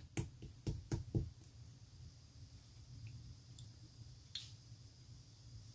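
Clear slime being handled, giving four quick sharp clicks in the first second and a half, then a few fainter clicks.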